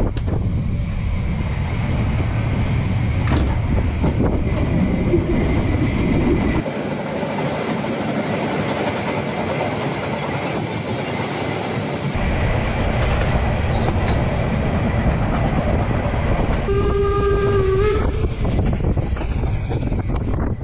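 Narrow-gauge steam train running, a continuous noise that changes abruptly twice. About 17 seconds in, the locomotive's whistle sounds one steady blast of about a second.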